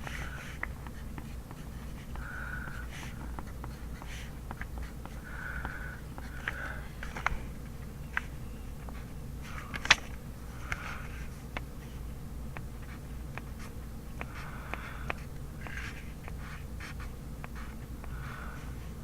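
Handwriting kanji on paper: short scratchy strokes and light taps of the writing tip on the page, one sharper tap about ten seconds in, over a steady low room hum.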